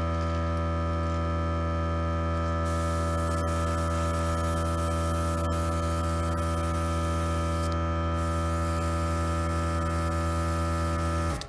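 Airbrush air compressor motor running with a steady hum, while the airbrush hisses on and off over it. Near the end the compressor cuts out and winds down with a falling pitch.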